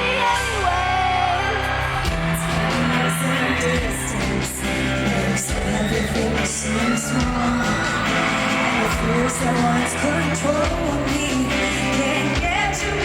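Pop song playing: a sung vocal line over held bass notes and a steady drum beat.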